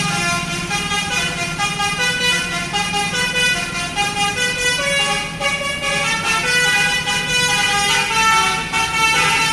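Telolet bus horn: a set of musical multi-tone horns playing a tune of held notes that step up and down in pitch, over a steady low hum underneath.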